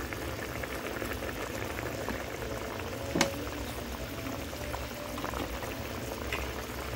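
Bata fish curry boiling hard in a steel wok on a gas stove, the thick sauce bubbling and crackling steadily, with one sharper pop about three seconds in.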